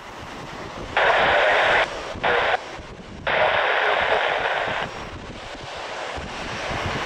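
Air-band scanner radio cutting in and out in three short clipped bursts of tinny, narrow-band transmission, over wind buffeting the microphone. From about five seconds in, a low jet rumble grows steadily louder as the Boeing 787-8 approaches on final.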